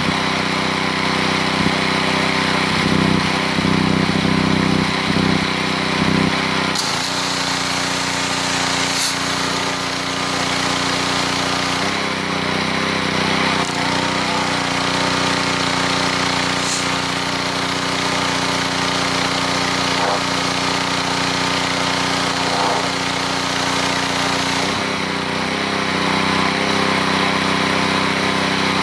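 Honda-engined gas pressure washer running steadily. About seven seconds in, the spray gun opens: high-pressure water hisses out and the engine note changes as the pump takes the load. The spray stops a few seconds before the end.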